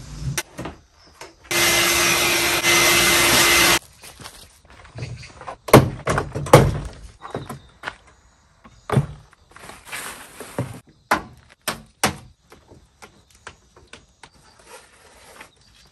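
Sharp knocks and thunks of a van's driver door being worked on, its panel and parts handled. About two seconds in, a steady whirring noise runs for roughly two seconds.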